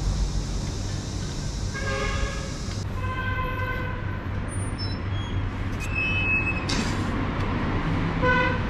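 Street traffic rumbling steadily, with a few vehicle horn toots: one about two seconds in, a longer one soon after, and another near the end.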